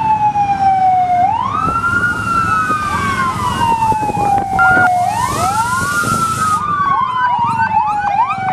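Fire truck sirens. One wails in long cycles, falling slowly and then rising quickly about every four seconds, while a second siren overlaps it with short, fast rising sweeps.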